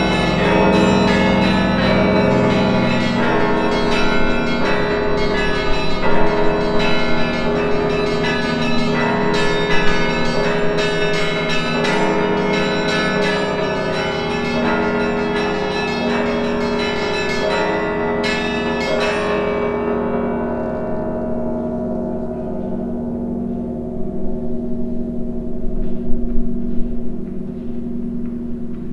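Russian Orthodox church bells pealing: rapid strikes on bells of several pitches over the deep, steady hum of the larger bells. The strikes stop about two-thirds of the way through and the bells ring out. A few low thumps come near the end.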